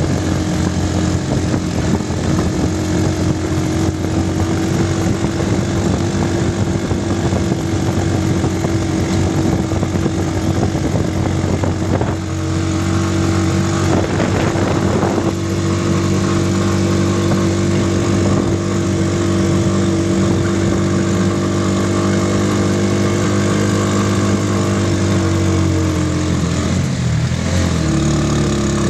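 Motorcycle tricycle's engine running at a steady speed, with a brief rush of noise about halfway through. Near the end the engine note drops as it slows to idle.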